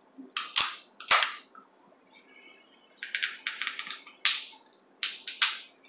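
Snow crab leg shell cracking and snapping apart by hand, close to the microphone. A series of sharp cracks: a few loud ones in the first second and a half, a run of small crackles around three seconds in, then a loud snap and two more cracks near the end.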